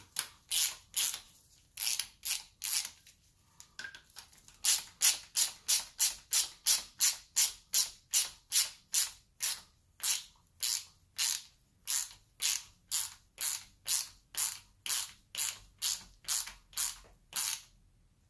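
Hand ratchet clicking in a steady rhythm of about three strokes a second, with a short pause about three seconds in. It is driving a pair of jammed nuts to thread a new exhaust manifold stud into the cylinder head.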